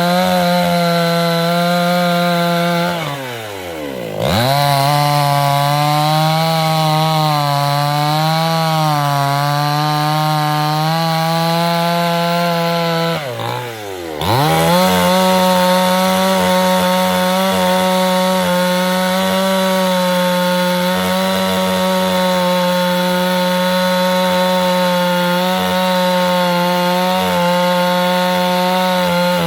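Two-stroke chainsaw running at high revs, cutting wood. About three seconds in and again about thirteen seconds in, the throttle is let off: the pitch drops sharply, then the saw revs back up.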